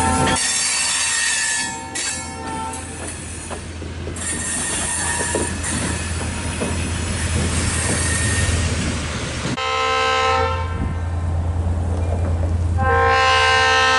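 Freight cars rolling past over the rails with wheels squealing. After a cut, a diesel locomotive's horn sounds a short chord-like blast, then a longer, louder one starting about three seconds later.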